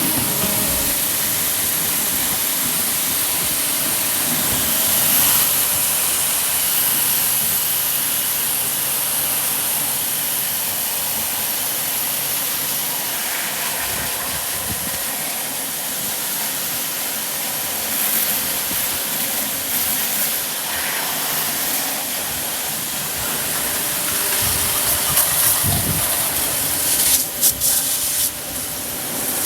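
Steady hiss of a high-pressure water jet spraying, the pump motor running under it, as an air conditioner is washed out during servicing. A few uneven clatters near the end.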